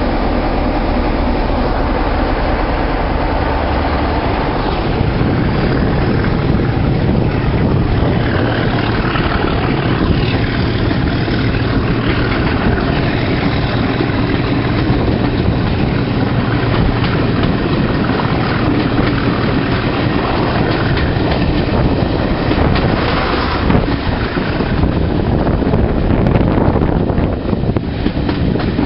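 Diesel locomotive engine running with a train of coaches, heard from an open carriage window; the low engine hum changes about five seconds in.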